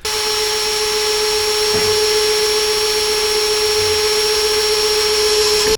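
Electric power tool running at a constant speed with a steady whine, starting and stopping abruptly.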